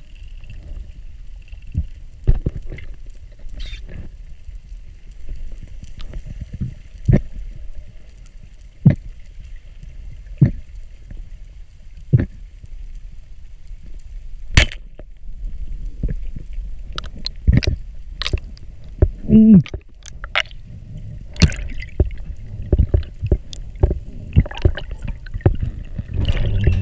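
Underwater sound heard through a diver's camera housing: a low rumble with irregular sharp clicks and knocks every second or so, growing more frequent later on. Near the end a louder rush of water builds as the diver rises toward the surface.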